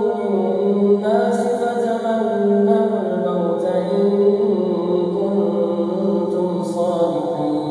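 A man's voice reciting the Quran in a slow, melodic chant, holding long notes that glide up and down in pitch, with a new phrase starting about a second in.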